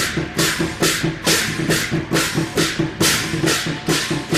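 Taiwanese temple-procession percussion troupe playing drums and hand cymbals in a steady, driving beat, the cymbals crashing about two to three times a second over the drums.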